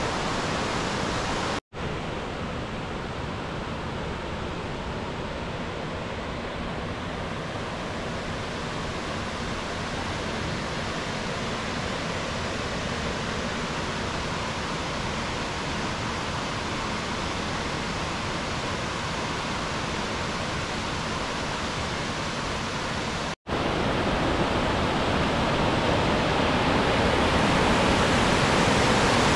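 River water pouring over a concrete weir: a steady, even rush of falling water. It drops out for a split second twice, about two seconds in and near the end. After the second gap the rush is louder and brighter.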